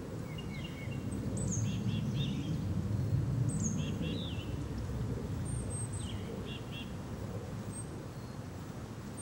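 Small songbirds chirping in short, scattered calls, several notes sliding down in pitch, over a steady low background noise.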